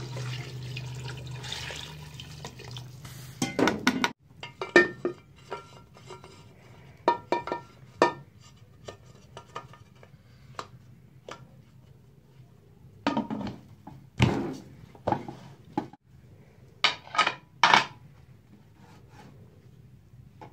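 Water poured into an aluminium pressure cooker for the first few seconds, then a series of sharp metal clanks and knocks as the ladle and the cooker's lid are handled and the lid is fitted on.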